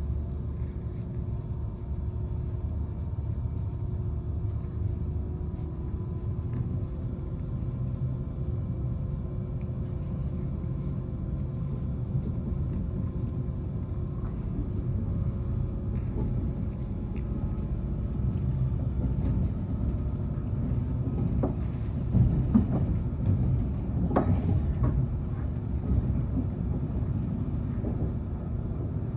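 Cabin noise inside a DB class 612 RegioSwinger tilting diesel multiple unit running at speed: a steady low rumble of wheels on rail with a faint steady hum from the diesel engines under the second-class end. A few sharper knocks come about two-thirds of the way through.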